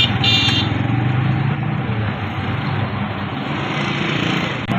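Steady roadside din: engine and traffic hum mixed with the hiss of potato chips deep-frying in a large pot of oil. A brief high-pitched tone sounds right at the start.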